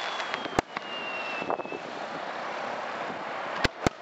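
Firework aerial shells bursting with sharp bangs, one about half a second in and two in quick succession near the end, over a steady hiss. A thin whistle falls in pitch and fades out about two seconds in.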